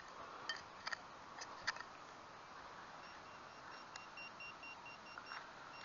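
Faint rapid pulsed beeping from a metal detecting pinpointer, starting about three seconds in, signalling metal at its tip. A few soft handling clicks come before it.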